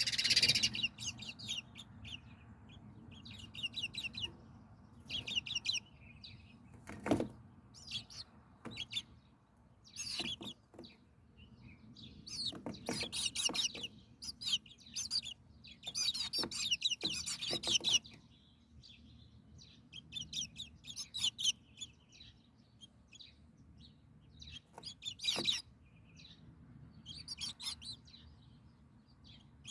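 Small birds chirping in repeated bursts of quick, high tweets, with a sharp knock about seven seconds in.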